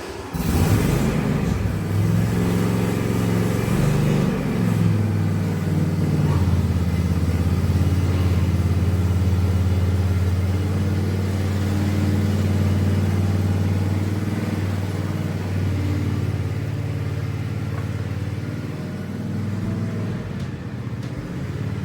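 Ride-on mower engine running. It changes speed over the first few seconds, then settles into a steady run.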